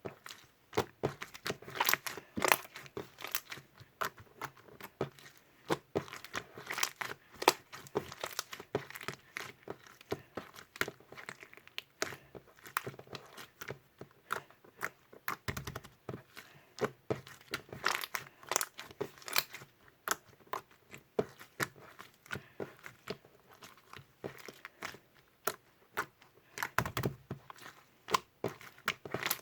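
Foam-bead slime (floam) being squeezed and worked by hand, giving dense, irregular crackling and popping of the beads.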